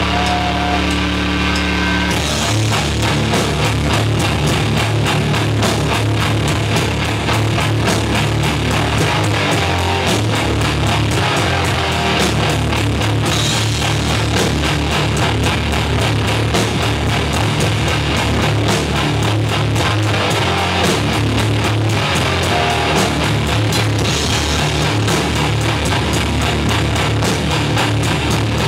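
Live rock band playing loud instrumental music on electric bass, electric guitar and a Pearl drum kit. Held notes ring for the first couple of seconds, then the drums and full band come in with a fast, steady beat.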